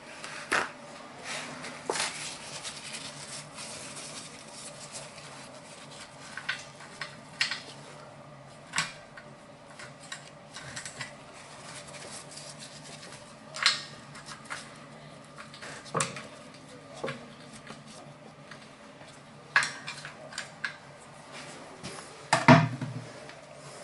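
Scattered clinks and knocks of hand tools and small metal parts being handled, with the loudest knock near the end.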